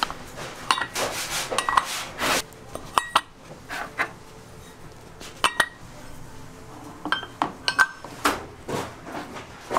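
Metal baking molds and a perforated metal sheet tray clinking and scraping as baked egg breads are tipped out of the molds and set down: irregular sharp clinks, some briefly ringing, with short rubbing sounds.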